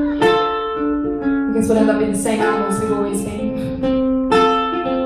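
Live song: a sung melody over ukulele, a run of held notes in the closing bars.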